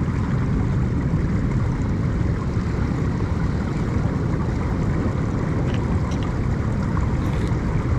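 Steady wind noise on the microphone mixed with the wash of the sea: an even, low-heavy hiss with no distinct events.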